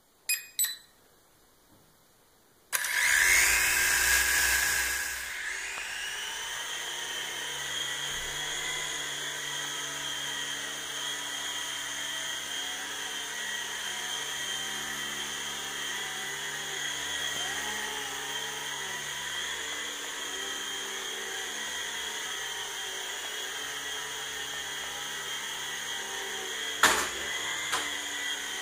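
Jamara Gyro V2 coaxial RC helicopter: a few brief clicks while it binds, then its small electric motors spin up about three seconds in with a rising whine and settle into a steady high whine of motors and rotors as it hovers, the pitch wavering slightly with the throttle. A single sharp knock comes near the end.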